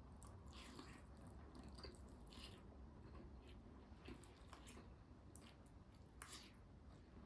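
A person chewing food close to the microphone: a string of short, irregular crunchy bites and chews, quiet overall.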